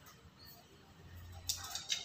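Black-capped lory moving at its plastic feeder cup: quiet at first, then a short run of faint scratchy clicks and rustles in the last half second as its beak and feet work against the cup.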